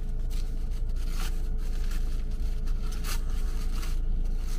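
A shawarma's wrapper crinkling and tearing in short bursts as it is unwrapped by hand, over the steady low hum inside a car.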